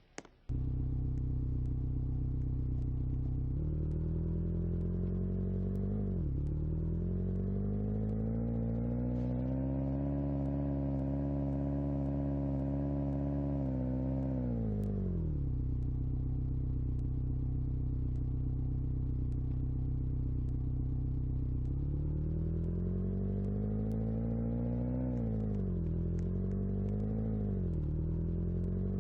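An engine starts sounding abruptly about half a second in and runs steadily at a low pitch. It revs up smoothly, holds high for several seconds and drops back. It rises again later, with a couple of quick dips near the end.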